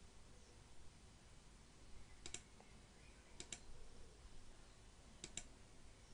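Faint computer mouse clicks: three clicks, each a quick press-and-release pair, over a low room hum.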